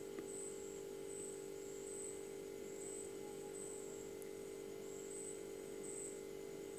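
Quiet background: a steady low hum with a thin, high-pitched chirp pulsing a bit more than once a second. The mixing in the bowl makes no clear sound.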